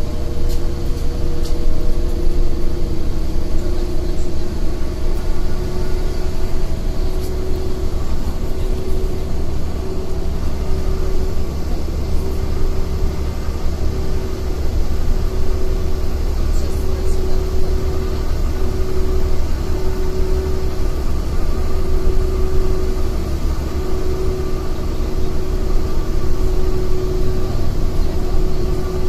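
City bus cabin while driving: a steady low engine and road rumble with a constant whine over it, and a few faint clicks from the bodywork.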